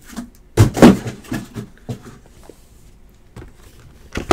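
Cardboard trading-card hobby box being handled and its perforated tear tab pulled open: a loud double thump about half a second in, then scattered light clicks and taps, and a sharp click at the end.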